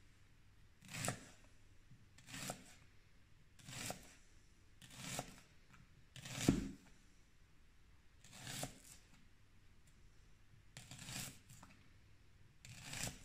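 Kitchen knife slicing through a peeled onion on a cutting board: eight separate crunching cuts, slow and a little unevenly spaced, the fifth the loudest.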